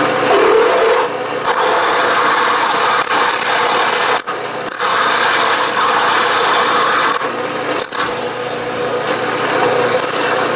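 A 7/16-inch twist drill cutting a hole through a metal disc under power: a steady grinding, rasping cut over the machine's running hum, with a high whine. The cut breaks off briefly a few times and then resumes.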